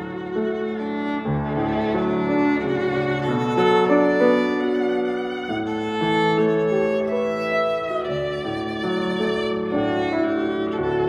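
Violin playing a bowed melody of held notes, accompanied by a grand piano.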